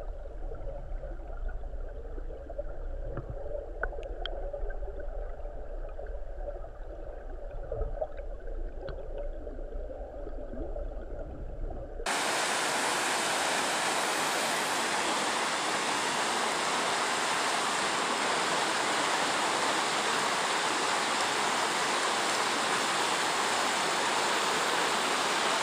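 River water flowing, heard first underwater as a muffled low rumble with a few faint ticks. About twelve seconds in the sound cuts to the riverbank, where the rapids under the bridge rush with a louder, steady hiss.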